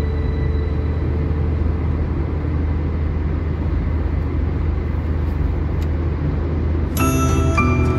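Steady low rumble of road and engine noise inside a car cruising at highway speed. Music comes in about a second before the end.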